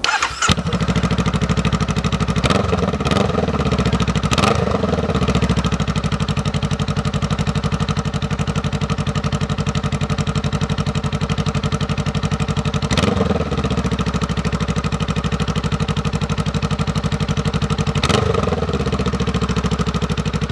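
Honda Rebel 500 parallel-twin engine running through a Radiant Shorty GP slip-on exhaust with a small baffle. It idles steadily with a deeper bark, blipped several times: a few short revs in the first five seconds, one in the middle and one near the end.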